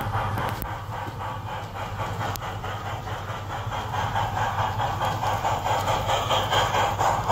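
G scale model train, a small tank engine pulling coaches, running on the layout's track with a steady low hum and a fast, even, rhythmic clatter, growing louder over the second half as the train comes close.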